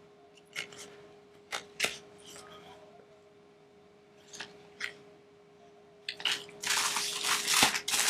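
A few light clicks and knocks of items being handled, then from about six seconds in a loud, continuous crinkling and tearing of plastic packaging as the dock is unwrapped.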